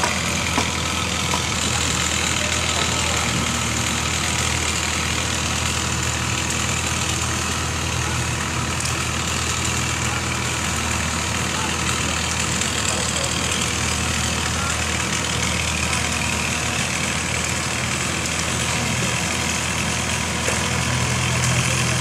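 Diesel engine of a Komatsu excavator running steadily at low revs, a constant low hum that grows slightly louder near the end.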